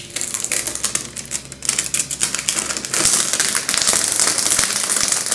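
Clear protective plastic film being peeled off a 32-inch monitor screen: a dense, fast crackling as the film lifts away, growing louder and fuller about three seconds in.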